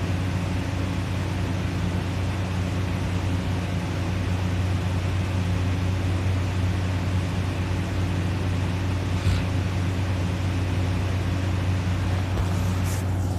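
A steady low hum with a faint hiss over it, unchanging throughout, with a brief click about nine seconds in and a short rustle near the end.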